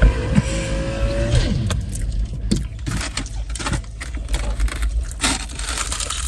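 Low steady rumble, as in a car cabin, with a held tone that glides down and stops about a second and a half in, followed by scattered light clicks and rustling.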